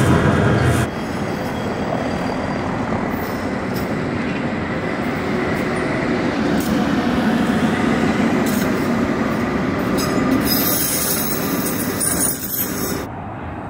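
A Tatra T3R.PLF tram running past over street track with a steady rumble. From about ten seconds in it gives a high-pitched, several-toned wheel squeal lasting a couple of seconds as it takes the curve. The first second is running noise from inside a moving tram.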